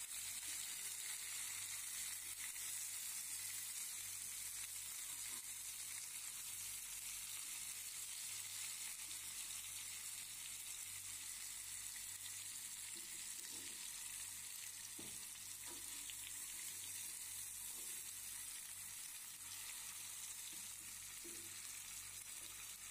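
Masala-coated mullet pieces shallow-frying in oil over a low flame: a steady, faint sizzle.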